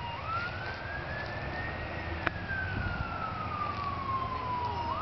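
Ambulance siren in a slow wail: one tone rising for about two seconds, falling for about three, then starting to rise again near the end. A single sharp click a little after two seconds in.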